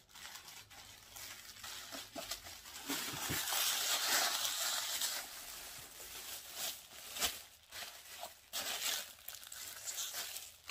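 Clear plastic wrapping crinkling and rustling as a sneaker is handled in it and slipped back into its plastic. The rustle is loudest a few seconds in, with small crackles throughout.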